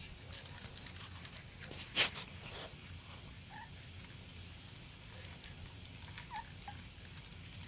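Boston Terrier puppies giving a few brief, faint squeaks while they scramble against the playpen fence. One sharp knock comes about two seconds in.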